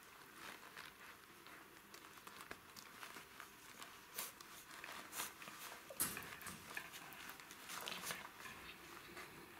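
Jack Russell Terrier puppies scuffling and tugging at a rubber toy on a quilted pad: soft rustling and pattering of paws and bodies, with a few sharp clicks, the loudest about six seconds in.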